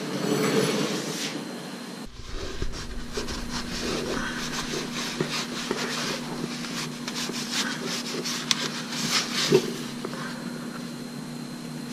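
Towel rubbing and wiping on an aluminum coolant pipe under a car, drying off leaking coolant, with scattered small knocks and clicks of handling. A faint steady hum runs under it from about two seconds in.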